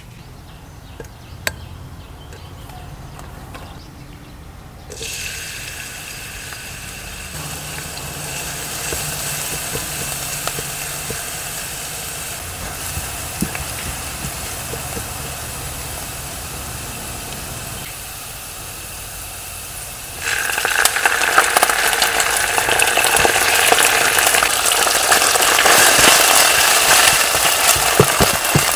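Minced garlic sizzling in hot oil in a nonstick pan, starting abruptly about five seconds in after a quiet opening. About twenty seconds in, the sizzle jumps much louder as raw chicken pieces fry in the pan and are stirred with a silicone spatula.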